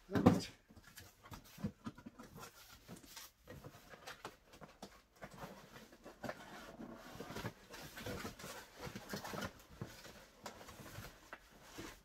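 Cardboard vacuum-cleaner box being handled and opened: a sharp thump on the box just after the start, then irregular scraping and rustling as the cardboard flaps are pulled open.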